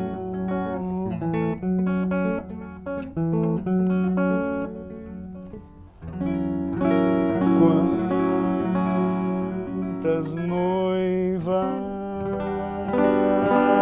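Archtop hollow-body guitar played solo: an instrumental interlude of picked single notes and chords between sung verses, with a short lull about six seconds in.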